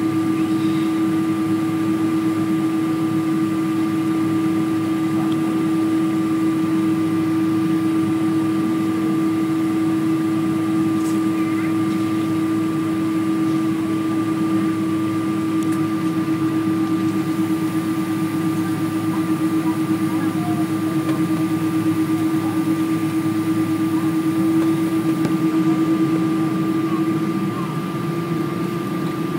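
Steady drone inside the cabin of a Boeing 777-200 taxiing after landing: the engines at idle, with a constant low hum and a fainter higher whine. It eases slightly near the end.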